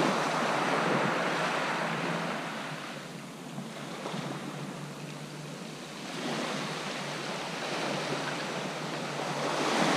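Sea surf breaking and washing up the beach in a steady rush. It falls back in the middle and builds again near the end.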